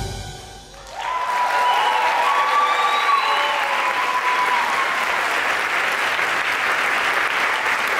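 The last of the music dies away, then about a second in an audience breaks into steady applause, with cheering over the clapping for the first few seconds.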